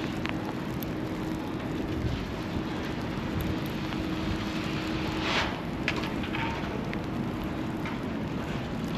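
Snowy city street ambience: a steady hiss of traffic, slush and wind, with a faint low hum and a few short hissing scrapes, the loudest about five seconds in.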